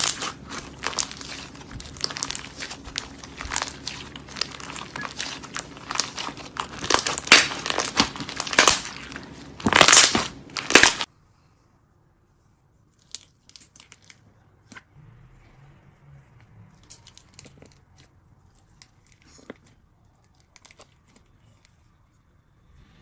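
Slime being worked by hand, with dense crackling and crunching clicks. About eleven seconds in the sound cuts off abruptly, leaving only faint scattered clicks and squishes.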